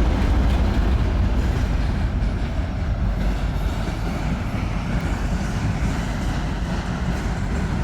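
Freight train cars rolling past: a steady low rumble of steel wheels on rail, easing off slightly toward the end.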